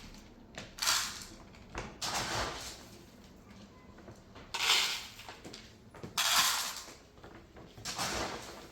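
Five short scraping or rustling noises, a second or two apart, over a quiet background.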